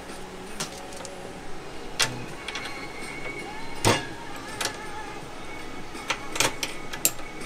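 Scattered metal clicks and knocks from handling a bar-type tube flaring tool clamped in a bench vise, as a hard fuel line is set into the flaring bar and the clamp is worked by hand. The loudest knock comes a little under four seconds in.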